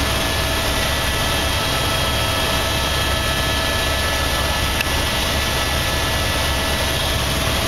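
Helicopter cabin noise in flight: a steady engine and rotor drone with a constant high whine over it.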